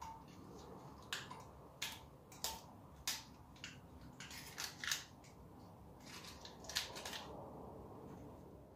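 Irregular metallic clicks and scrapes, about a dozen, as a pressure regulator is handled and screwed onto the valve of a small welding gas cylinder.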